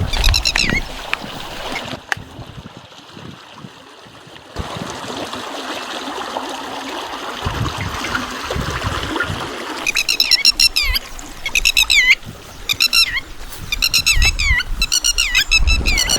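A steady hiss through the middle, then birds chirping in quick, repeated high calls from about ten seconds in.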